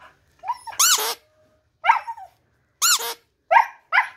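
Siberian husky 'singing': about six short, high whine-howls, each rising and falling in pitch, with brief gaps between them.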